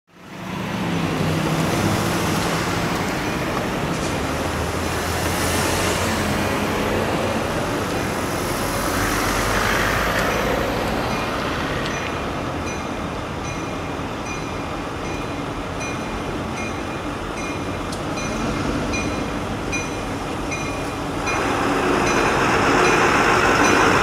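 Passenger train led by New England Central diesel locomotives approaching, a steady rumble that grows louder near the end. Through the middle a bell rings in steady strokes, a little more than once a second.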